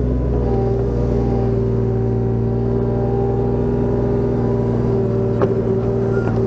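Mini excavator running steadily, its engine and hydraulics working as the arm lifts and swings a load. There is a short click about five seconds in.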